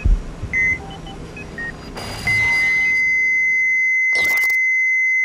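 Electronic monitor beeps: a few short scattered beeps, then from about two seconds in a single continuous steady beep that holds, the flatline tone of a patient monitor. A brief burst of noise cuts across it about four seconds in.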